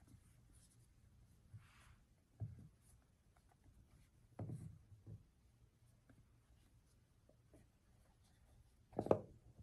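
A cardboard box handled by hand on a wooden table: faint rubbing and scraping of fingers on the cardboard, with a few light knocks as it touches the table and a louder knock near the end.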